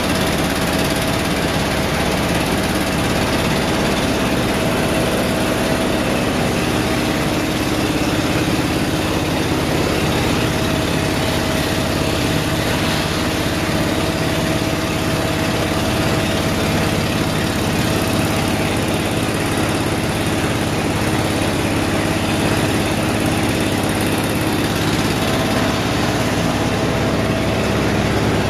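Steady drone of running factory machinery, an even rushing noise with a couple of held hum tones.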